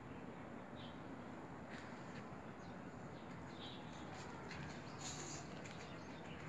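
Faint outdoor ambience with a few short, high bird chirps.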